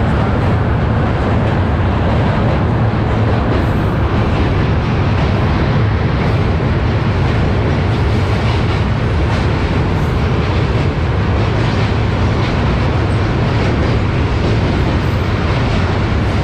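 Passenger train running across a steel truss railway bridge, heard from an open coach door: a loud, steady rumble of the wheels on the rails.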